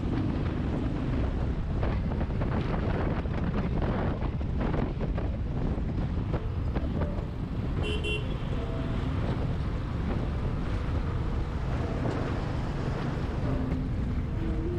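Wind buffeting the microphone over the steady running of a Royal Enfield Thunderbird 350's single-cylinder engine at highway cruising speed. A brief horn toot sounds about eight seconds in.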